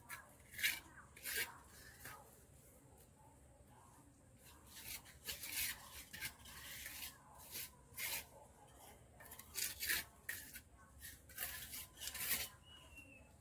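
Leafy plant stems and leaves rustling, snapping and tearing in short, irregular bursts as someone works them by hand.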